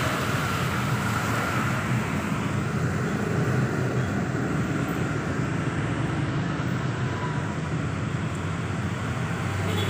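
Steady drone of an engine running, a constant low hum under an even hiss that neither rises nor falls.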